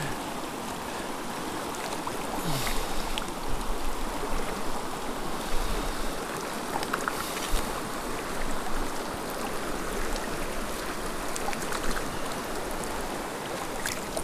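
Steady rush of a shallow, rocky mountain river flowing over stones.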